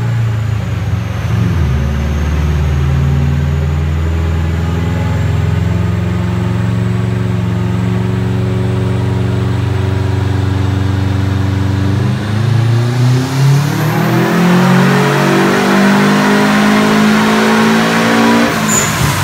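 Turbocharged Subaru Impreza flat-four engine (FP Green turbo, E85, about 25 psi of boost) making a full-throttle pull on a chassis dyno. The engine holds a steady note for about twelve seconds, then revs climb steadily for about six seconds before the throttle closes and the revs drop right at the end.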